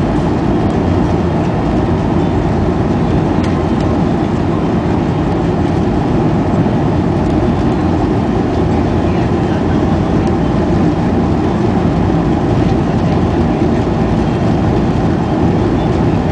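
Steady, even cabin noise inside a Boeing 737-400, the hum of its CFM56-3 turbofan engines and airflow.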